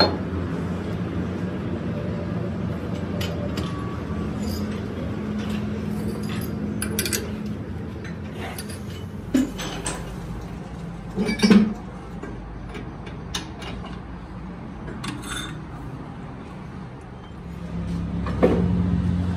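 Metal parts and tools clinking, with a few sharper metal knocks about halfway, over a steady low machine hum that grows louder near the end.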